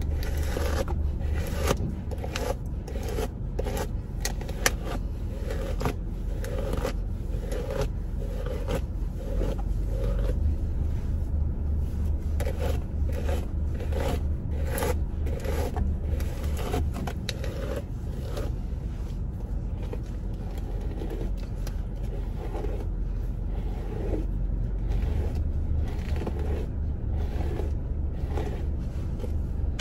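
Paddle brush dragged through dry, thick natural hair to detangle it, in repeated scratchy strokes of roughly two a second, fewer in the middle stretch. A steady low hum runs underneath.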